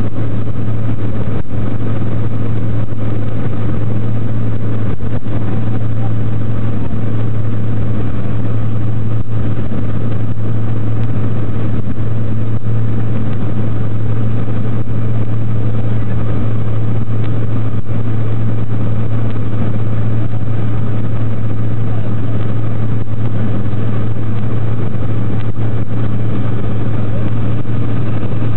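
Light aircraft's engine running steadily at cruise: a loud, even, low drone heard from inside the cabin.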